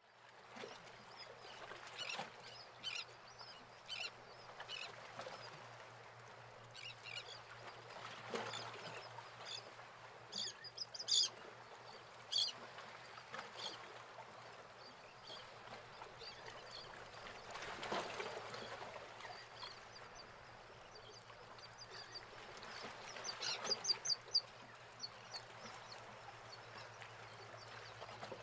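Birds calling faintly in short, scattered chirps and calls, with a busier run near the middle and another near the end, over a faint steady low hum.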